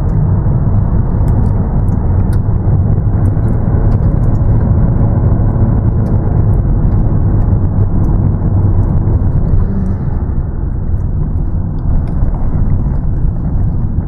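Steady low rumble of a car's engine and tyres on the road, heard from inside the cabin while driving, easing slightly about ten seconds in.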